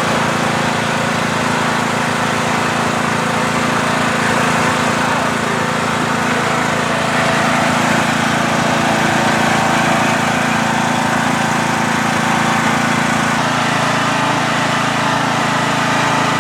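Riding lawn mower engine running at a steady speed, its pitch holding even with no revving up or down.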